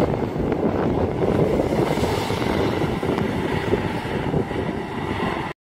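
Kobelco SK210LC-10 long-reach excavator running as it swings its long boom around, a steady diesel engine sound with faint knocks. The sound cuts off abruptly near the end.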